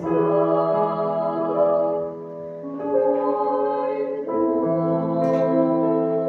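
Closing bars of a Christian song: sung voices in harmony holding long chords over instrumental accompaniment, the chord changing a few times.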